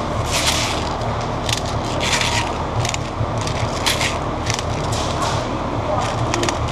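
Crunching, scraping handling noise close to the microphone, with irregular sharp clicks and a steady low rumble underneath.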